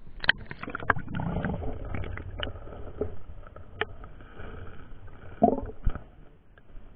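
Muffled underwater sound of river water moving among stones: a low rumble with scattered clicks and knocks as the camera bumps and scrapes along the stream-bed rocks.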